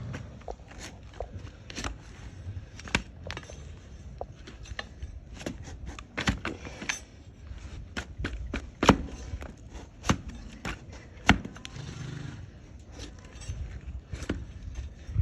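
Hoof-trimming blade cutting and scraping a donkey's hoof horn: irregular sharp cuts and scrapes, with several louder snaps about 3, 9 and 11 seconds in.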